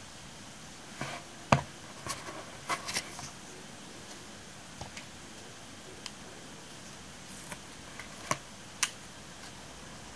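Small handling sounds of stationery on a desk: a pen set down on a notebook and a sticker sheet handled and pressed onto a paper page, heard as a scatter of short clicks and taps, the loudest about a second and a half in.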